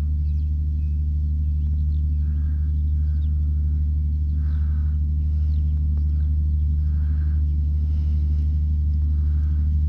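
Steady low drone of the diesel engine of a Vredo VT 4546 self-propelled slurry applicator working across a field at a distance, with faint bird calls and chirps over it every second or so.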